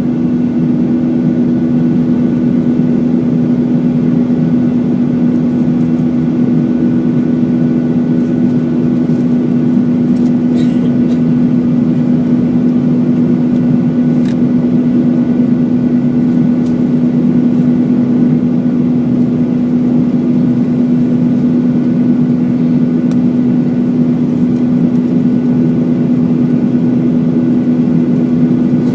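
Steady engine drone inside the cabin of a Boeing 737-900 in flight, from its CFM56-7B turbofans, with a constant low hum over the rushing noise.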